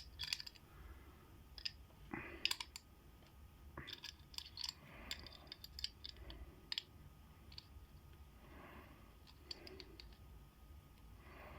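Faint, irregular metallic clicks and light scrapes of a lock pick and tensioner being worked in the keyway of an old Burg warded padlock.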